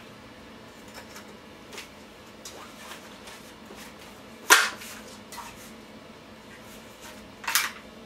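Rifle's bolt being worked by hand: a sharp metallic clack with a short ring about halfway through, and another clack near the end, with the action moving freely.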